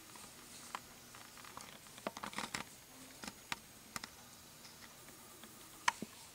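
Faint, scattered small clicks and taps, with a quick cluster about two seconds in and a sharper single click near the end.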